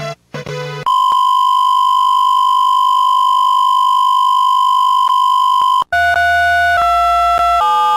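Electronic attention tone of an emergency alert broadcast: a loud steady pure tone held for about five seconds. It breaks off and is followed by three shorter tones in a row, each at a different pitch.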